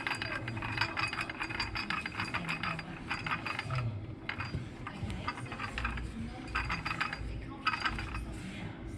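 Hand ratchet wrench clicking in several short bursts of rapid clicks, turning a fastener on the clutch of a 2018 Arctic Cat 1000.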